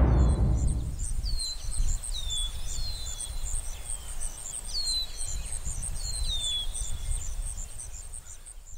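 Forest ambience: an insect's rapid, even pulsing trill, about five pulses a second, with a bird's short downward-sweeping whistle calls repeated every second or so, over a low rumble. The end of a music track dies away at the start, and the whole sound fades out near the end.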